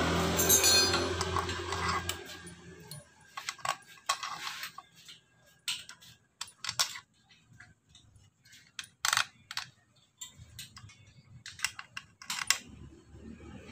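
Scattered metallic clinks and clicks of a hand tool and bolts against the clutch cover of an old Honda Supra engine as the cover is fastened back on. A low steady hum fades out over the first two or three seconds.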